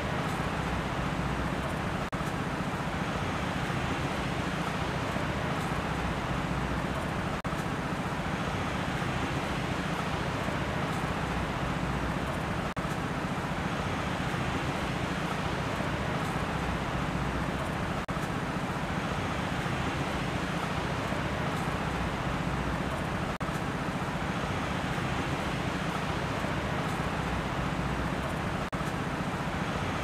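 Steady rushing ambient noise, swelling and easing gently every few seconds.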